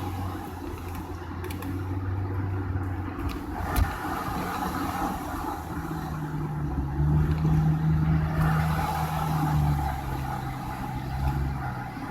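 Car engine and tyre noise heard from inside the moving car, the engine's hum changing pitch a couple of times as the speed changes.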